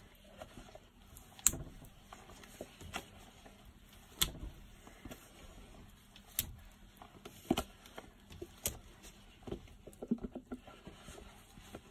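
Scattered light taps and clicks of a spoon against containers while soap batter is dolloped into a mould, about a dozen at uneven spacing.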